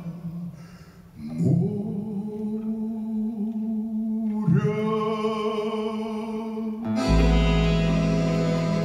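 Closing bars of the song, played by a small ensemble as sustained, held chords. Higher notes join midway, and about seven seconds in the ensemble moves to a full final chord with a deep bass.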